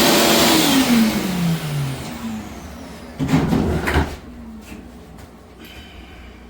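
Shop-vac motor running and then shut off, its whine falling steadily in pitch as it spins down over about two seconds. A second short burst of noise comes about three seconds in.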